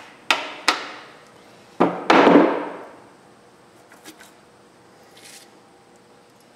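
Hammer blows on a cover of a 1960 Oliver OC46 crawler's transmission case, knocking it loose: two sharp ringing strikes, then a louder clatter about two seconds in. After that come a few faint clicks as the cover is worked free.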